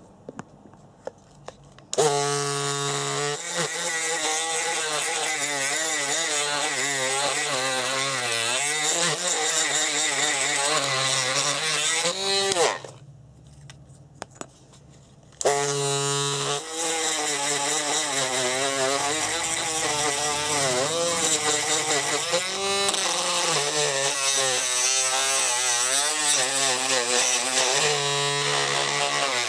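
Small high-speed rotary tool grinding away the inside of a plastic RC gearbox to make room for a larger 550 motor. It starts suddenly at a steady pitch, then wavers and dips as it bites into the plastic. It is switched off for a few seconds partway through, then started again.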